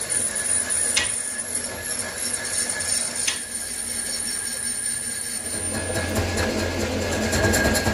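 Metal lathe running with a cast truck wheel hub spinning in its chuck: a steady mechanical whine with a high tone, two sharp clicks in the first half, and a heavier low rumble coming in about five and a half seconds in.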